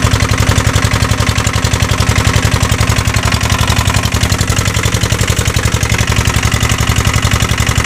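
Boat engine idling, a steady, rapid, even thudding pulse.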